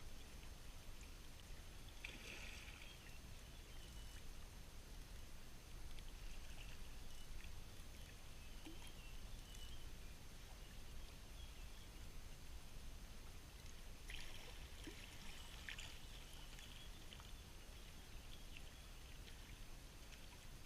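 Faint water sounds over a low, steady outdoor rumble, with brief louder splashy patches about two seconds in and again around fourteen to sixteen seconds in.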